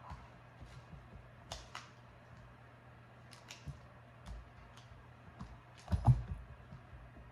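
Scattered light clicks and taps as a Labrador puppy moves about and touches a plastic target disk, with one louder thump about six seconds in, over a steady low hum.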